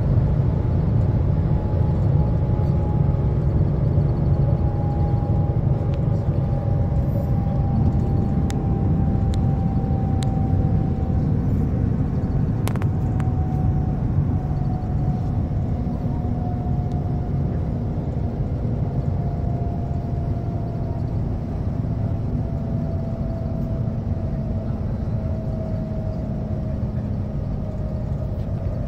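Cabin noise inside the Shanghai Transrapid maglev train as it slows down: a steady low rumble, with a thin whine that falls slowly and evenly in pitch as the speed drops.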